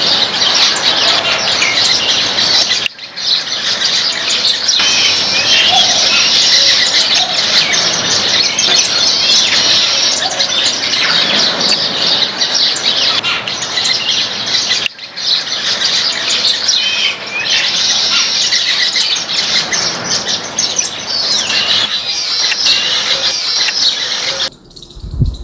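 A flock of small seed-eating birds chirping and chattering densely, many high calls overlapping. The chorus breaks off briefly twice and stops abruptly near the end.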